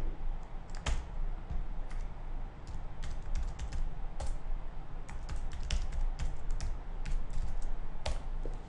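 Typing on a computer keyboard: irregular sharp key clicks, over a steady low hum.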